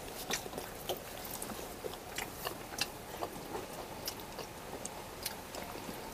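Quiet eating sounds: roti being torn and egg curry scooped by hand from steel plates, with chewing, heard as a scatter of small irregular clicks and smacks.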